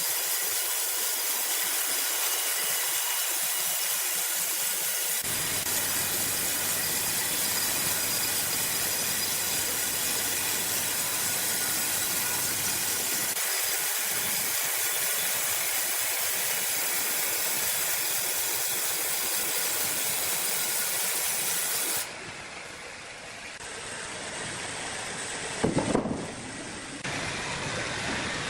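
Sawmill machinery running with a steady, loud hiss. About three-quarters of the way through the sound drops abruptly to a quieter mix, with a few loud knocks a little later.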